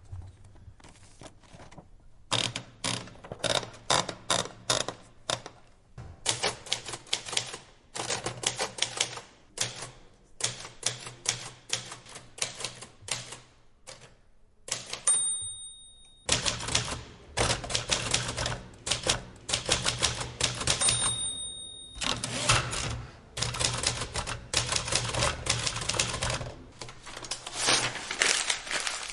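Typewriter keys clacking in quick runs of strokes with short pauses between them. The carriage bell rings twice, about halfway through and again about three-quarters in.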